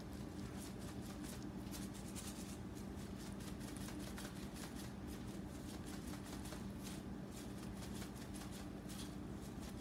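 A plastic seasoning shaker being shaken over a raw chicken, its dry granules pattering in soft, rapid ticks, over a steady low hum.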